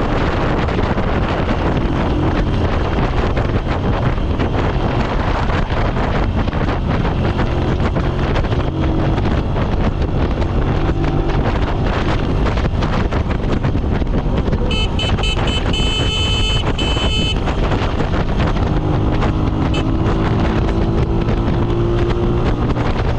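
Motorcycle engine running at a steady cruise under heavy wind buffeting on the microphone. Past the middle, a rapidly repeating high-pitched beeping sounds for about three seconds.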